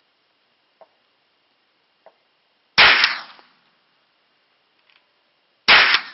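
Two shots from a Hi-Point 995TS 9mm carbine, about three seconds apart, each followed by a short fading echo.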